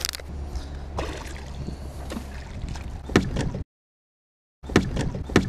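Steady wind and water noise around a fishing boat, with a few sharp splashes and knocks as a hooked largemouth bass thrashes at the surface. The sound drops out completely for about a second near the end.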